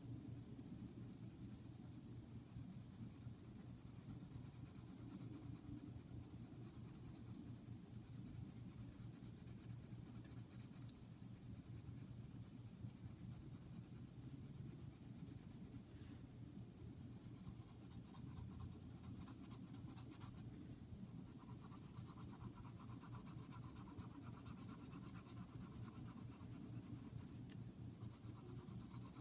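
Pencil scratching faintly on drawing paper in quick, continuous back-and-forth shading strokes.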